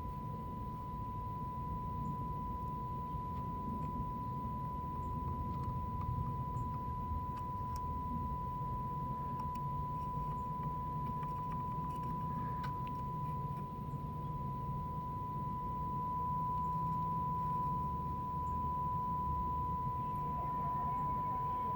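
Steady test tone from the tube radio's speaker, one unchanging pitch. It is the signal generator's modulation tone, heard through the radio's FM section while its IF stages are peaked. Under it is a low hum and a few faint ticks.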